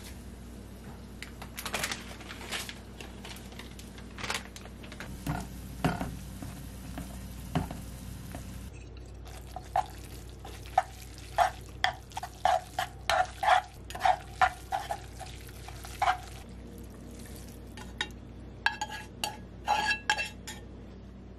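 Wooden chopsticks stirring instant jjajang noodles in a nonstick frying pan, with a quick run of sharp clicks and scrapes against the pan. Near the end there are a few ringing clinks against a ceramic bowl as the noodles are served.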